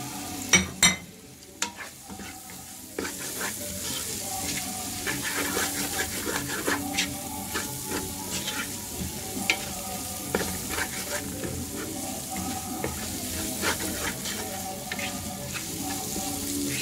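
Sliced onion, spring onion and spice powder sizzling in oil in a pan while a wooden spoon stirs and scrapes across the bottom. A few sharp knocks come in the first two seconds. The sizzling grows louder from about three seconds in.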